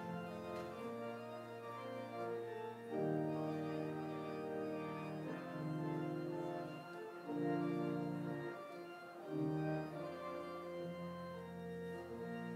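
Church organ playing the postlude: sustained chords that change every second or two.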